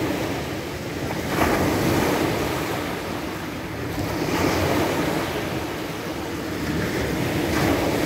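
Sea surf breaking on a pebble beach: three waves crash and wash up the shore, one about every three seconds.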